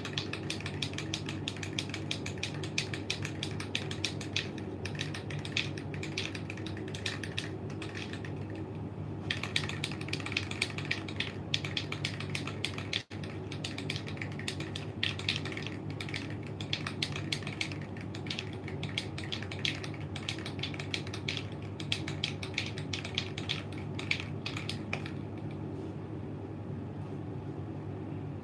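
A Dupli-Color engine enamel aerosol can being shaken, its mixing ball rattling in fast, sharp clicks. The rattling breaks off briefly about eight seconds in and stops shortly before the end. A steady low hum runs underneath.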